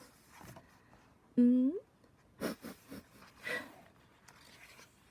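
A short wordless sound from a woman's voice, about half a second long and rising in pitch at its end, about a second and a half in, followed by a few brief soft rustles.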